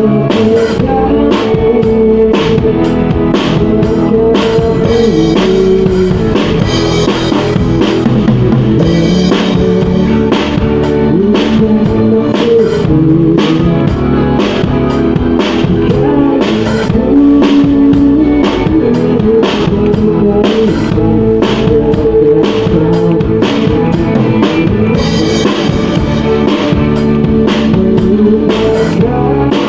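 Amplified rock band playing an instrumental passage: a drum kit keeping a steady beat under electric guitar and bass, with no singing.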